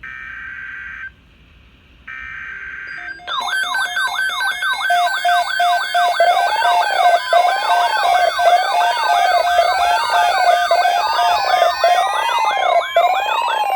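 Emergency Alert System header: two one-second bursts of warbling data tone ("brrr"). From about three seconds in, these give way to a loud pile of overlapping electronic siren tones, with fast up-and-down sweeps layered over slower wails that rise and fall about once a second. A steady tone joins in for the last few seconds.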